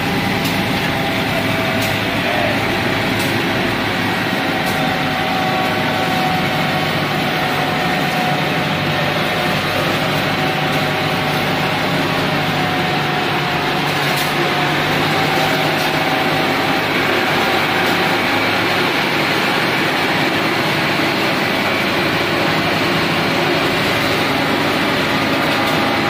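Asphalt paver's diesel engine running steadily under load as the machine lays hot-mix asphalt.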